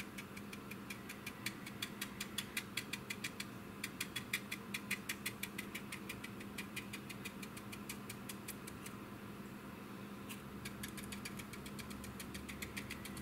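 Light, quick ticks of a stiff round stippling brush dabbing weathering paint onto a plastic scale-model wing, several taps a second, pausing briefly about two-thirds of the way in before starting again, over a faint steady hum.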